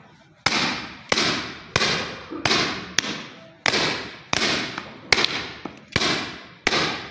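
Hammer blows on steel hollow-punch cutters, punching ring holes through curtain fabric on a wooden block: about ten sharp metallic strikes, roughly one every two-thirds of a second, each ringing out briefly.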